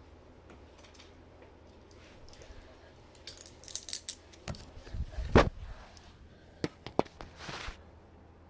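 Glass marbles running down a plastic marble-run track, clicking and rattling in scattered bursts that start about three seconds in. A louder, deeper thump comes about five seconds in, with a few more sharp clicks after it.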